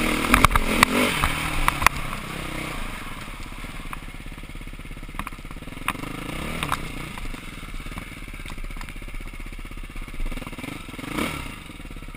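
Dirt bike engines running at low speed. The first two seconds are full of clattering knocks from riding over rocks. After that the engine settles to a steady low putter, and a second bike's engine revs up and back down near the end as it pulls close.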